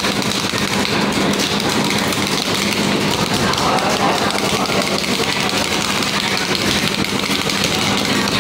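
Fish-shooting arcade table game sounds: a dense, continuous clatter of rapid shots and electronic effects, over a steady low hum.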